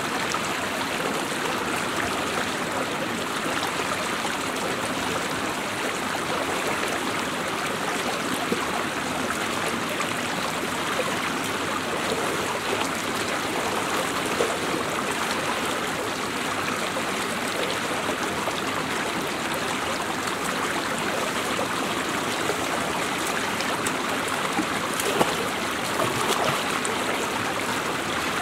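Shallow rocky stream rushing and burbling steadily over a small cascade of boulders, with a few brief sharp sounds, the loudest near the end.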